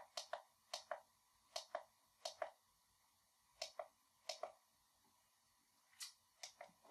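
Push buttons on a benchtop signal generator being pressed to key in a 2 Hz sine wave setting: a dozen or so faint clicks, many in quick pairs about a fifth of a second apart, with short pauses between presses.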